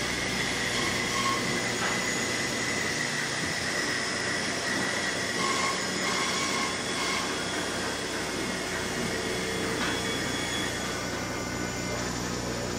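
Woodshop machinery running steadily: a continuous mechanical din with a steady high whine over it.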